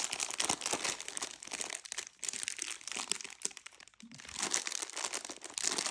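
Plastic snack packet of Twiglets crinkling as it is handled and turned over, a dense crackle with two short lulls.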